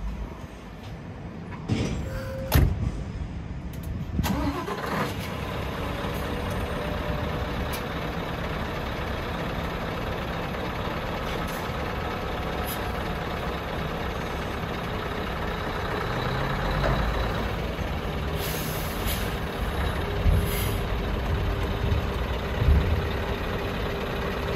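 Two thumps, then a Scania tractor unit's diesel engine cranks and starts about four seconds in and settles to a steady idle. Near the end the engine note rises a little as the truck creeps forward, with two short hisses.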